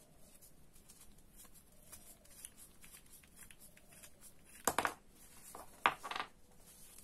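Disposable plastic gloves rustling and small parts of a Daiwa Seiko Coronet 5 reel's side plate clicking as it is taken apart by hand. Two sharper knocks follow, about two-thirds of the way in and again near the end, as parts are set down on a wooden tabletop.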